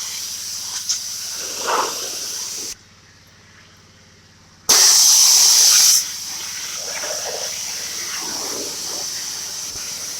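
Pressure washer spray from a 40-degree white tip held about an inch from a wooden deck: a steady hiss. It cuts out for about two seconds near the middle, comes back louder for about a second, then settles back to the steady hiss.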